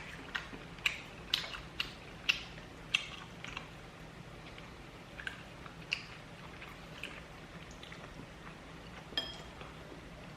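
Close-up chewing of crispy, sauce-glazed fried chicken (kkanpunggi): a run of sharp crunches, coming thick and fast in the first few seconds, then sparser.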